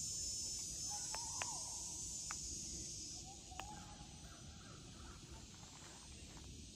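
Faint outdoor ambience with a few short bird calls, one about a second in and another around three and a half seconds. Behind them are a steady low background and a high hiss that fades out about halfway through.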